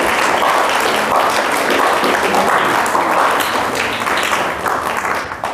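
Audience applauding: many hands clapping in a dense, steady patter that fades away near the end.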